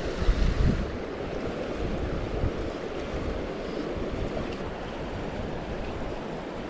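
River current rushing steadily, with wind buffeting the microphone in the first second.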